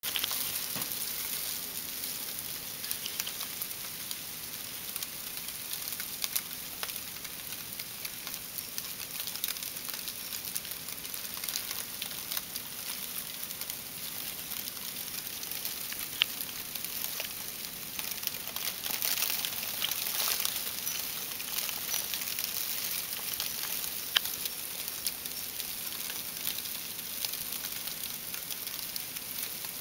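Ice from an ice storm falling on snow and iced-over surfaces: a steady fine hiss dotted with many small ticks, a little heavier about two-thirds of the way through.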